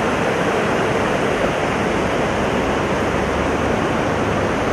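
Steady rush of a muddy stream pouring through the openings of a small vented dam.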